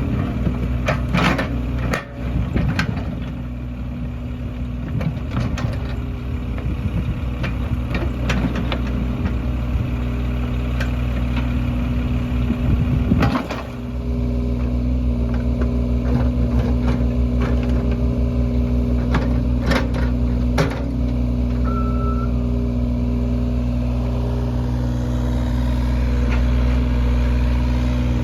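Excavator's diesel engine running steadily, with scattered knocks and clanks from the digging, most of them in the first half.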